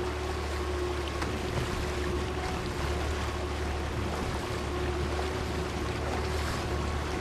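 A boat's outboard motor runs steadily under way, a constant hum with a steady tone, over water and wind noise.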